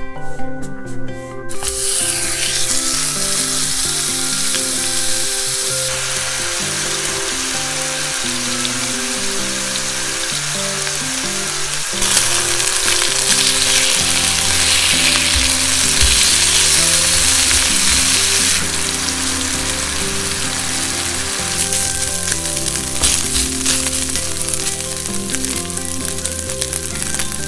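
Ground chicken sizzling in hot oil in a frying pan, the sizzle starting suddenly about a second and a half in as the meat goes into the pan, and getting louder around the middle while the meat is pressed and broken up.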